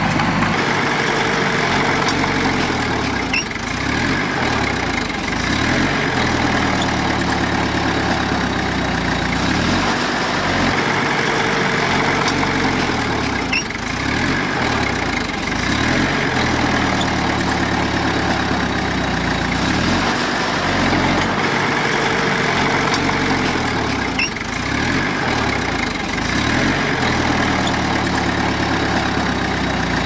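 Heavy earthmoving machine's diesel engine running under changing load. Its pitch repeatedly sags and climbs back every few seconds as the machine works.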